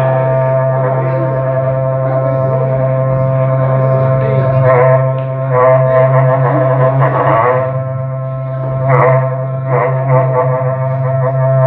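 Berrante, the Brazilian ox-horn cattle-calling trumpet, blown as one long unbroken low drone, with repeated bright swells in its tone from about five seconds in.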